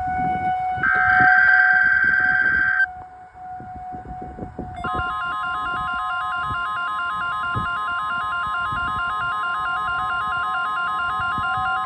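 NOAA weather radio going off for its weekly test. First come harsh buzzing data bursts of its alert header with a short gap between them, then a brief lull. About five seconds in, the steady warning alarm tone starts along with the receiver's fast alternating alert beeping, which cuts off at the end. A steady tone from the Federal Signal 2001-130 outdoor warning sirens hums underneath throughout.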